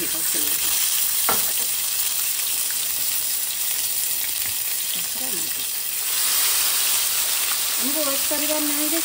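Roughly cut tomato pieces hitting hot oil in a kadai and sizzling loudly and steadily. About six seconds in the sizzle grows louder as ground masala paste goes into the oil.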